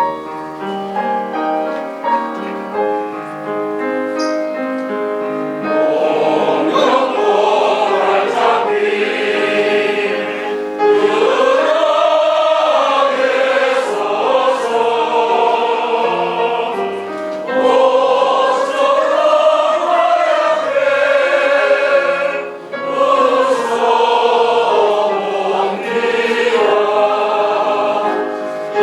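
A group of amateur singers singing a Korean art song (gagok) together with piano accompaniment; the piano plays alone for the first few seconds before the voices come in.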